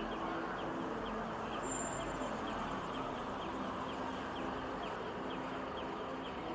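Busy city street ambience: a steady hum of passing traffic and crowd, with a city bus and cars going by. A faint high chirp repeats about three times a second throughout.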